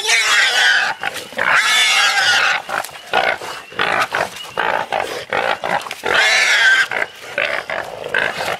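Feral hog sow squealing, with dogs on it: long, loud, high screams at the start, again around a second and a half in and near the end, and shorter squeals in between.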